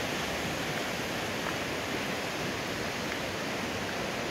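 Steady, even rush of a fast-flowing mountain stream running below.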